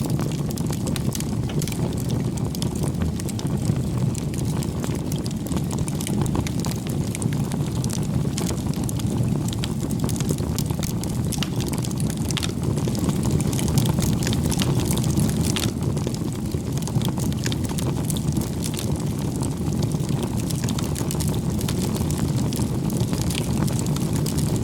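Wood bonfire burning: a steady low rush of flames with scattered sharp crackles and pops.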